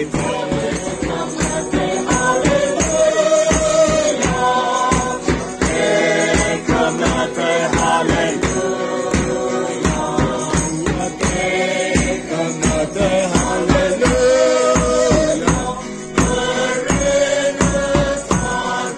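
A crowd singing a Christmas song together, with a drum kit keeping a steady beat and jingling percussion underneath.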